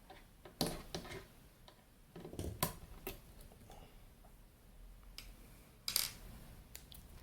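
Scattered metallic clicks and knocks from screws, tools and the metal chassis being handled while an avionics display unit is taken apart, with the sharpest clink about six seconds in.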